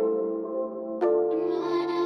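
Slow, gentle instrumental background music, with a new chord struck about a second in and left to ring.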